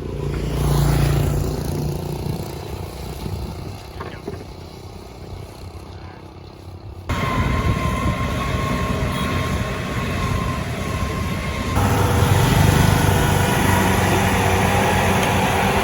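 An engine running steadily, with the sound jumping abruptly louder and brighter about seven seconds in and again about twelve seconds in.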